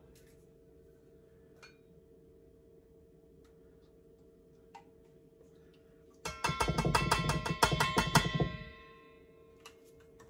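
Spoon clinking rapidly against the applesauce jar and a stainless steel mixing bowl, a quick run of ringing taps lasting about two seconds, a little past the middle, as applesauce is scooped out into the bowl.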